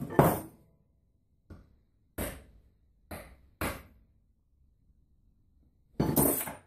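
A hammer tapping a centre punch on an aluminium billet to mark a hole's centre: a string of separate sharp metal knocks with a brief ring after each, and a longer clattering knock near the end.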